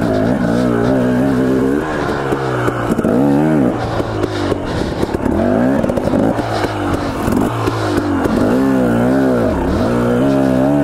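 Husqvarna TE250 two-stroke dirt bike engine under hard throttle on rough trail, its revs rising and falling sharply every second or two as the rider works the throttle.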